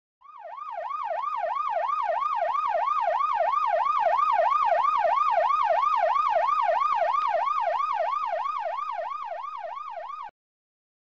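Emergency-vehicle siren in a fast yelp, its pitch sweeping up and down about three times a second. It swells in, grows loudest midway, fades again and then cuts off suddenly near the end.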